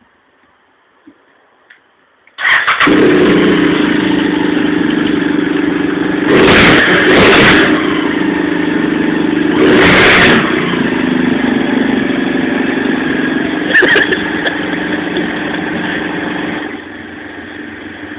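BMW 650 GS motorcycle engine starting suddenly about two and a half seconds in and settling into a steady idle. It is revved briefly three times, twice close together and once a few seconds later, and runs quieter near the end.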